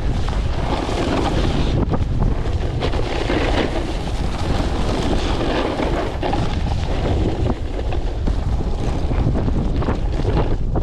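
Strong gale-force wind buffeting the microphone: a loud, steady rumbling roar of wind noise.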